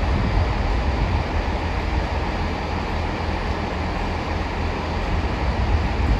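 A train running at the station platform: a loud, steady rumble of engine and wheels on the rails.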